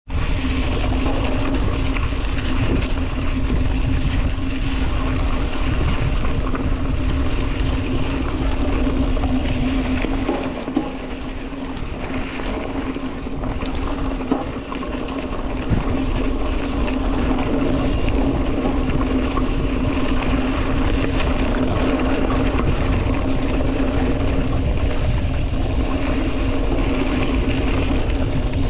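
A motor running at a steady pitch with a constant hum, over low rumble and rushing noise. It eases off a little about ten seconds in and picks up again around fifteen seconds.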